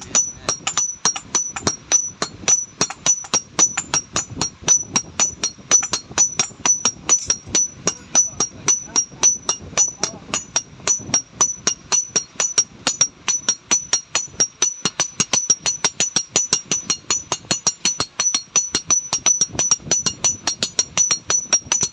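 Blacksmith's hammer striking metal in a rapid, steady rhythm of about five blows a second, each blow giving a short, high metallic ring.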